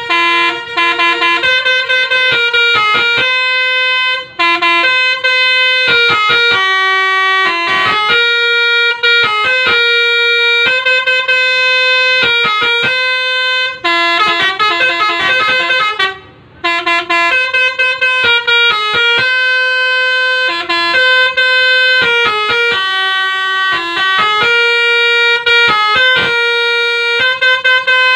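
Pianika (melodica) playing the telolet bus-horn melody in short repeated notes and longer held notes, with a few brief pauses.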